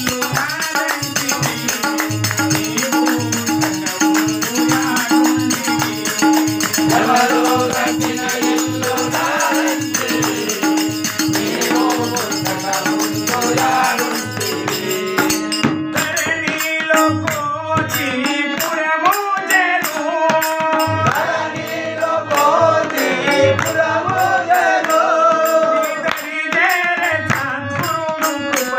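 Telugu devotional bhajan: a man singing to a steady beat of tabla and small hand cymbals, with harmonium accompaniment.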